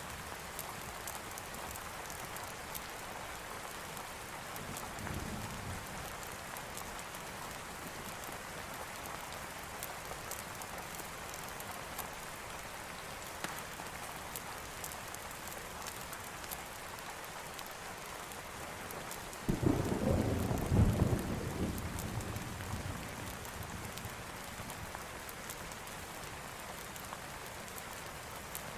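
Steady rain falling, with a sudden clap of thunder about two-thirds of the way through that rumbles for a few seconds and fades back into the rain.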